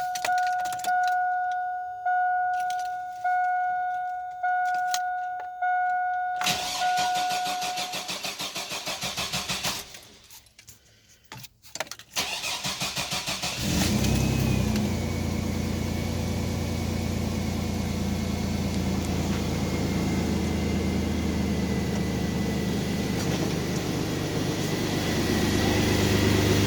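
A 2001 Chevrolet Blazer's warning chime beeps steadily about once a second, then the starter cranks the 4.3 L V6 in two spells and the engine catches about fourteen seconds in and settles to a steady idle. The idle is free of the grinding from the old idler pulley, but a faint steady whine remains, which the owner puts down to a shot alternator bearing.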